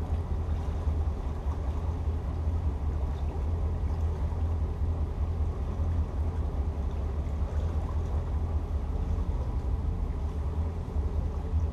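Twin 7.4-litre (454 cubic inch) GM V8 inboard engines of a Sea Ray 330 Sundancer running steadily underway, a deep even rumble heard from the helm under the canvas enclosure.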